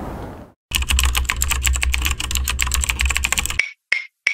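Logo sound effect: a dense run of rapid clicks like typing over a low rumble, which stops suddenly about three and a half seconds in. Sharp, evenly spaced clock-like ticks follow, about three a second.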